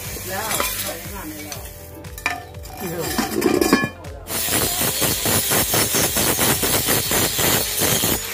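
Steel gas-cylinder halves clanking as they are set down on a concrete floor. About four seconds in, an angle grinder starts abrading the paint off a cylinder half, a loud harsh hiss that pulses about four times a second.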